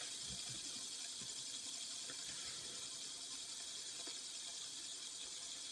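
Cheap plastic fidget spinner spinning freely on a flat surface: a steady, faint high hiss from its bearing, with a few soft low knocks right at the start.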